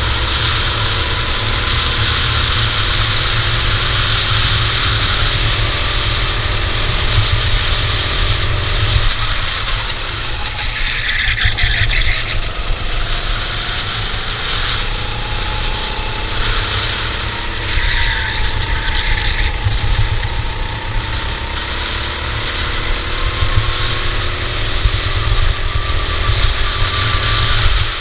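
Cadet racing kart engine running at speed, its pitch slowly rising and falling as the kart brakes and accelerates, over a steady low rumble. Two brief louder hissing patches come a little under halfway and about two-thirds of the way through.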